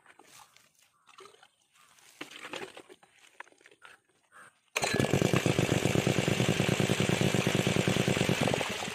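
Honda-type 2-inch petrol water pump's small single-cylinder engine starting suddenly about halfway in and running with an even, rapid pulse for about four seconds before dying away near the end. Before that, only faint knocks from handling the pump.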